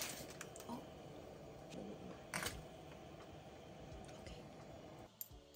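Pot of water boiling with a steady bubbling hiss as spaghetti goes in, with a few light clicks; the sound cuts off abruptly about five seconds in.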